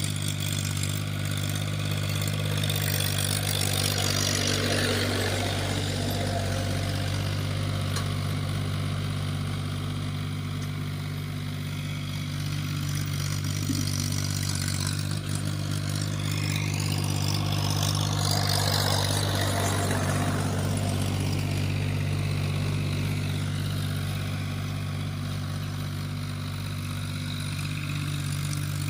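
Diesel tractor engine running steadily under load while ploughing a field, a constant low hum that swells a little louder about four seconds in and again around eighteen to twenty seconds in.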